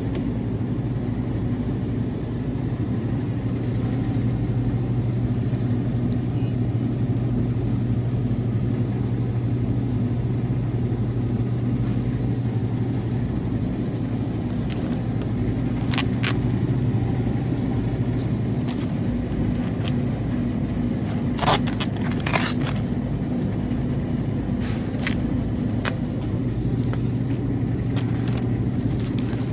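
Steady low mechanical hum of a grocery store, with a few sharp clicks and clatters about halfway through and again around two-thirds of the way in.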